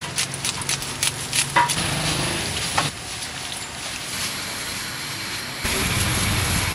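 Kitchen prep sounds in quick succession. First come sharp snips of scissors cutting lettuce. About three seconds in, hot oil sizzles steadily as fried rolls are lifted out in a wire strainer. Near the end there is a louder rustling as boiled noodles are tossed by hand in a steel bowl.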